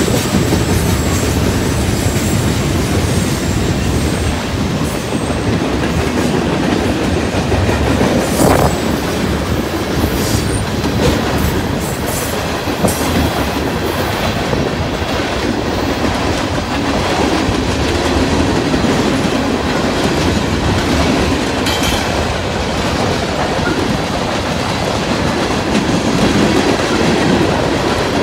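Freight train cars rolling past, a steady loud rumble with the wheels clattering over rail joints, and a few sharp clanks partway through.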